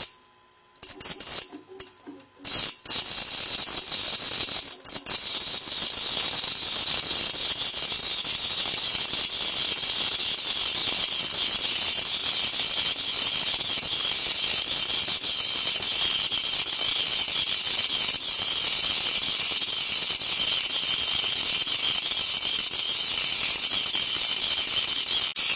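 Sinker EDM electrode sparking against a metal workpiece: a dense, steady crackling hiss that comes in a few short spurts at first, then settles into an unbroken run about three seconds in.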